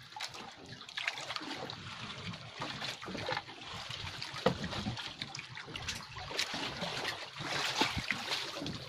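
Sea water trickling and splashing at the side of an outrigger fishing boat, with a few light knocks.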